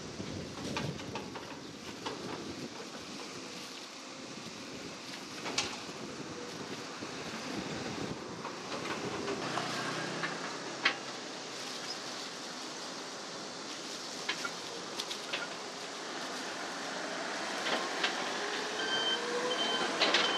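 Steady rumble of passing road traffic, with scattered sharp clicks and rustling as a knife and plastic-gloved hands work jackfruit bulbs free from the fibres on a metal tray.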